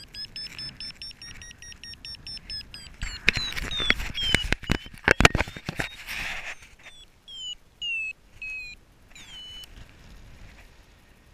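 Paragliding variometer beeping in a quick run of short, high beeps, the sound it makes in rising air. Midway, a few seconds of loud knocks and rubbing as something brushes against the camera, then the beeps come back more sparsely, with one longer held tone near the end.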